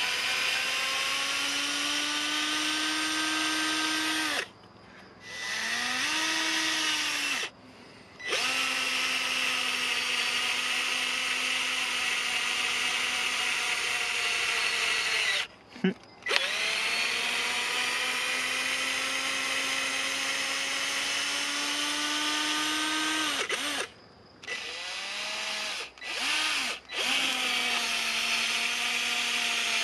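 AEG BS 12 C2 12 V cordless drill-driver driving a 90 mm lag screw into a log, its motor whining under load in long runs. It stops briefly a few times, with a couple of short bursts near the end.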